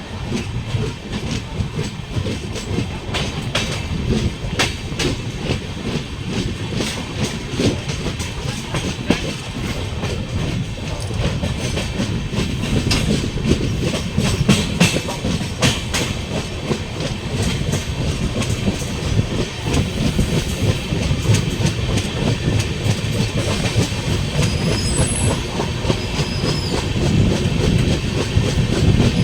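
LHB passenger coaches running along the track at speed: a steady low rumble of wheels on rail, broken by irregular clickety-clack clicks as the wheels pass over rail joints.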